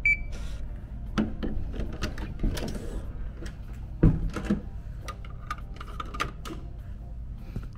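Hotel keycard door lock giving one short high beep as the card is tapped on it, followed by a run of clicks and knocks from the lock, handle and door. The loudest is a thump about four seconds in.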